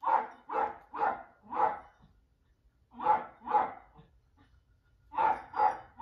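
Small shaggy dog barking in quick groups: four barks, a pause, two barks, a pause, then two more.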